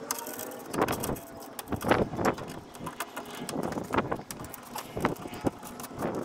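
Irregular metal clicks and clanks of hand tools working on bolts, about ten sharp strikes at uneven intervals, some ringing briefly.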